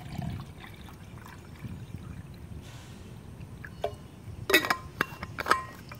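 Water pouring from a stainless steel bottle into a stainless steel cup, then several sharp metal clinks with a brief ringing as the bottle and cup are handled, the last of them about a second apart.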